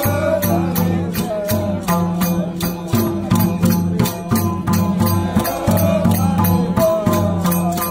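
Several madal hand drums beating a fast, even rhythm of about four strokes a second, with voices singing over a steady held drone.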